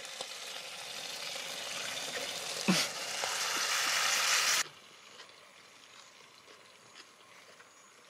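Meat sizzling as it cooks: a steady hiss that grows louder, then cuts off abruptly about four and a half seconds in.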